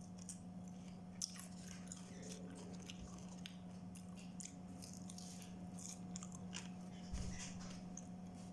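A person biting and chewing fried chicken close to the microphone: faint, scattered crunchy clicks, over a steady low hum.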